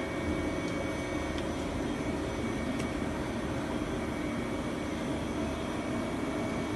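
Victor Vturn 36 C-axis CNC lathe running: a steady machine hum with a thin high whine over it and a few faint ticks.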